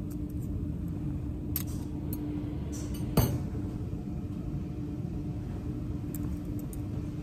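Stainless steel surgical clamps and a wire instrument stringer clinking lightly as the clamps are threaded onto the stringer, with one sharper clink about three seconds in, over a steady low hum.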